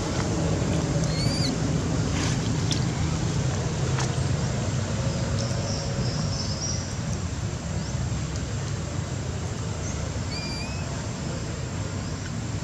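Steady low outdoor rumble with no clear source, with two brief, high, rising chirps, one about a second in and one near the end.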